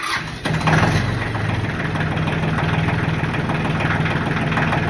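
Small Ford tractor engine, started with a jump wire that bypasses a wiring fault, cranking briefly, catching about half a second in and then running at a steady idle.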